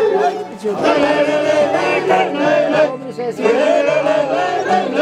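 A group of men singing together in a chant-like song, several voices wavering in pitch at once, with short breaks between phrases.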